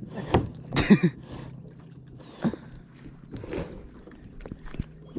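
A series of knocks and scrapes from a kayak being handled, the loudest about a second in, with smaller knocks later.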